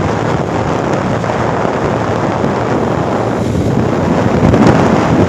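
Wind rushing over the microphone of a moving motorcycle, a loud steady roar with road noise underneath, swelling a little near the end.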